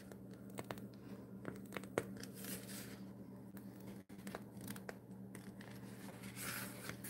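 Faint crinkling and rustling of a piping bag being squeezed to pipe whipped topping, with scattered small clicks, over a low steady hum.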